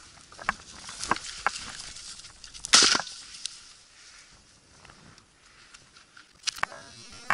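Footsteps crunching through dry grass and brush, a run of short crisp crunches, with one louder brief rustling swish about three seconds in and two sharp clicks near the end.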